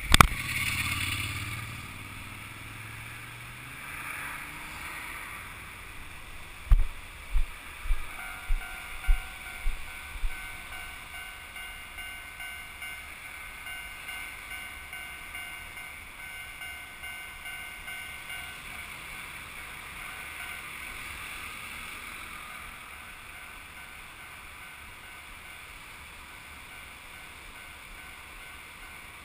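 Steady rush of surf breaking on a sand beach, with wind on the microphone. A sharp knock right at the start and a run of about seven low thumps around seven to ten seconds in come from the camera being handled.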